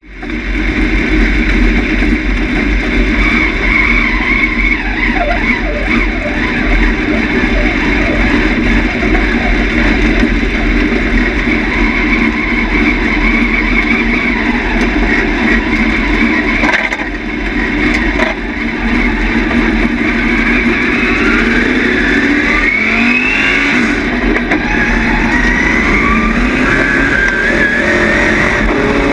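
Dirt late model stock car's V8 engine heard from inside the cockpit, running steadily as the car rolls out, with the revs climbing in several rising pulls near the end.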